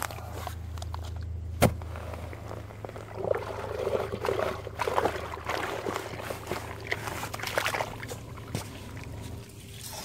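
Shovel digging into wet, sandy soil, with one sharp knock about one and a half seconds in. Then come irregular wet scrapes and sloshing as water starts pouring down the freshly opened trench.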